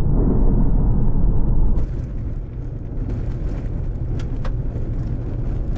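Low rumble of a car driving, heard inside the cabin. About two seconds in it gives way to a slightly quieter, wider rush of strong wind with a few brief crackles.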